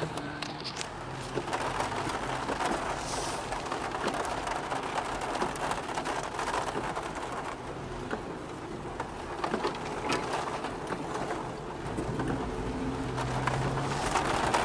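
Heavy rain falling on a car's roof and windshield, heard from inside the cabin as a steady rush dotted with many small drop ticks, over a low engine hum.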